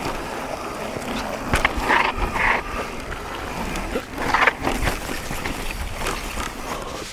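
Mountain bike ridden down a trail: tyres rolling over rough ground with scattered knocks and rattles, loudest about two seconds in and again around four and a half seconds in.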